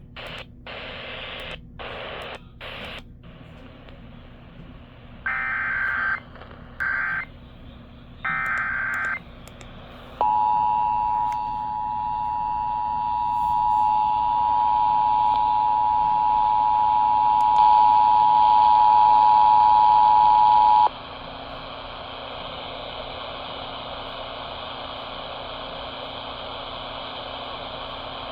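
Emergency Alert System relay over the radio for a severe thunderstorm warning. Three short bursts of warbling SAME data header, about a second apart, are followed by the steady two-tone EAS attention signal, which lasts about ten seconds and cuts off suddenly into radio hiss.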